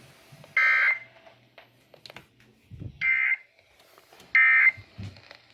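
Electronic alert beeper sounding three short, high beeps about half a second long. A faint steady electrical hum and a couple of soft low thumps run underneath.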